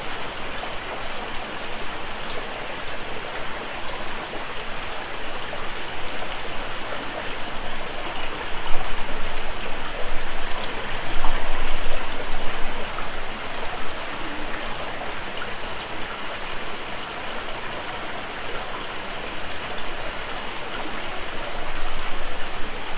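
Steady rushing and splattering of water falling and running at the foot of a wet rock cliff, with a thin steady high tone above it. It swells louder twice, about nine and eleven seconds in.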